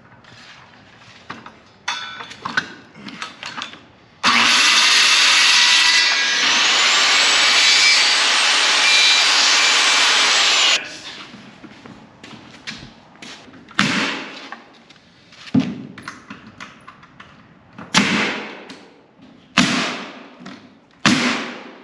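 A power tool runs loudly for about six seconds, starting and stopping abruptly. It is followed by about five sharp knocks a second or two apart, each fading quickly.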